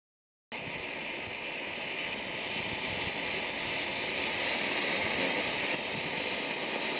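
Smoke grenade hissing steadily as it vents smoke, a continuous rushing hiss that cuts in abruptly about half a second in.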